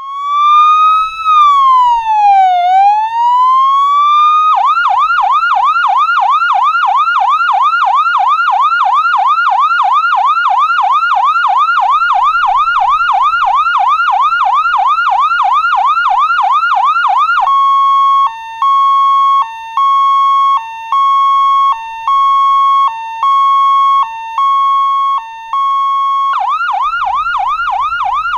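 Electronic ambulance siren switching between modes. It opens with a slow wail rising and falling once, then changes to a fast yelp of about three sweeps a second. After that comes a steady high tone broken by short lower notes about once a second, and near the end it returns to the fast yelp.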